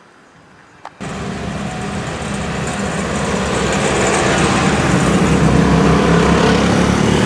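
Road traffic passing close by: a car and then motor scooters going by with engine and tyre noise. It starts suddenly about a second in and grows louder, staying loud near the end.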